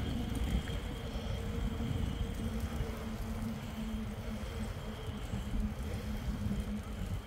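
Mountain bike with knobby tyres rolling along a concrete footpath: steady tyre noise and wind rumble on the microphone, with a faint steady hum running through it.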